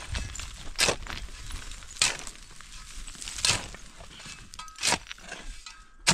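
A steel shovel being driven into rocky, stony soil and scraping out earth and stones, a sharp crunching stroke about every second and a quarter.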